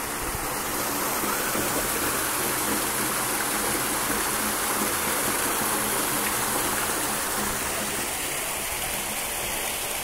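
Floating surface aerator in a fish pond, throwing water up in a spray that falls back onto the pond surface with a steady splashing rush.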